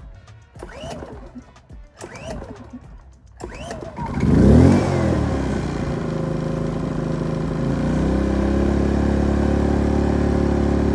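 Pulsar GX400BN inverter generator being pull-started on propane. A few more recoil-cord pulls whir, about one a second. The engine catches just before four seconds in, surges briefly and settles into a steady run, then steps up to a slightly higher steady speed about eight seconds in.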